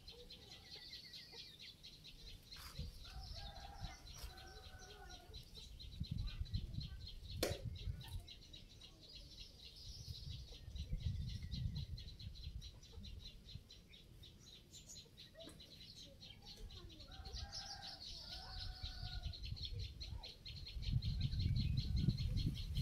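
Quiet outdoor ambience: a steady, fast, high-pitched ticking throughout, with two brief bird calls and a sharp click. Low rumbles come and go and grow louder near the end.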